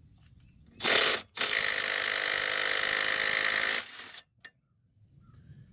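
Milwaukee cordless right-angle impact running on a 12 mm strut bracket bolt: a short burst about a second in, then a steady run of a couple of seconds that cuts off suddenly as the bolt comes free.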